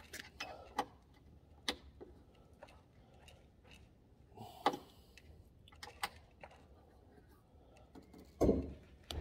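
Scattered light metallic clicks and taps of an Allen wrench being worked in a golf cart roof-strut screw, coming at irregular intervals. Near the end comes a louder knock.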